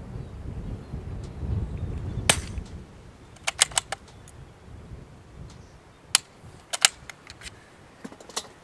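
A scoped bolt-action rifle being fired and worked. There is a sharp crack about two seconds in, then a quick run of clacks, and more cracks and clacks about six to seven seconds in. Wind rumbles on the microphone for the first few seconds.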